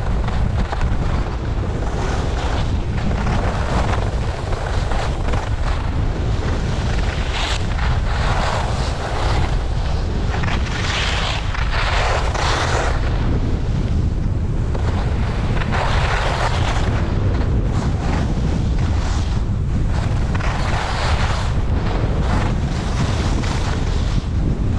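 Wind rushing over a GoPro Hero8's microphone as the skier moves downhill, a steady low rumble, with swells of ski edges scraping across the packed snow every few seconds as the skier turns.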